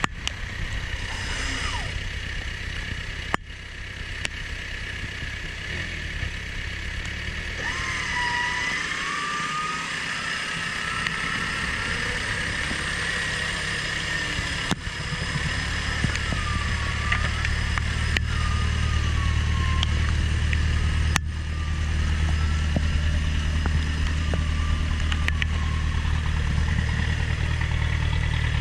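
Off-road 6x6 truck engine running under load as the truck works through mud, getting louder over the second half. Over it a high whine wavers up and down in pitch.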